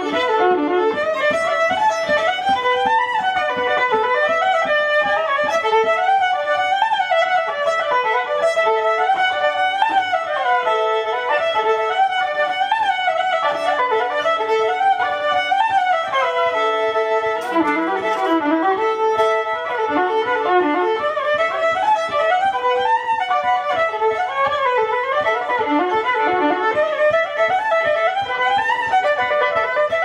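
Electric violin played with a bow in a fast, flowing line of many short notes that climb and fall, over a steady low rhythmic pulse.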